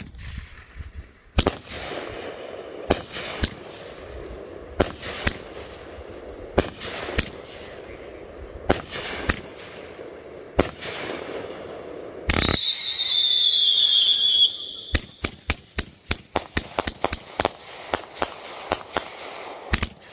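A Raccoon Fireworks 'Bang Bros' 44-shot 500-gram consumer cake firing. At first, single shots go up about every two seconds, each a launch thump followed quickly by a bang from the burst. Twelve or so seconds in, a shrill whistle slides slightly down for about two seconds, then a fast string of sharp bangs and crackles follows.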